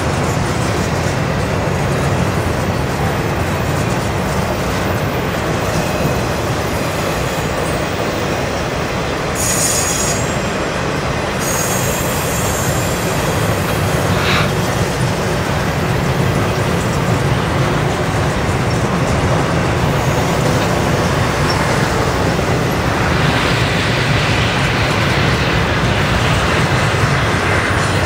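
Double-stack intermodal container train's well cars rolling past steadily, steel wheels rumbling on the rails. Short high wheel squeals come about ten seconds in.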